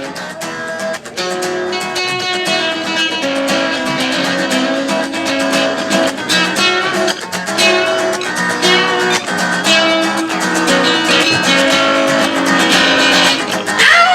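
Acoustic guitars playing an instrumental break: steady strummed chords under a picked lead melody.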